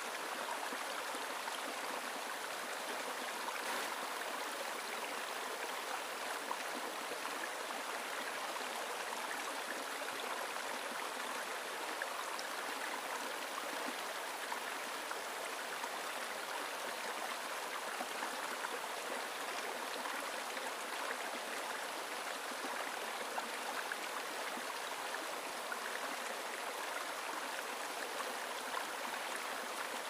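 Small, shallow stream flowing over rocks and stones: a steady, even rush of water that does not change.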